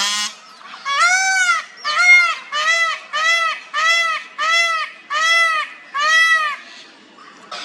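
Male peafowl (peacock) calling a rapid series of about eight short calls, each rising then falling in pitch, after a brief noisy burst at the start; the series stops near the end.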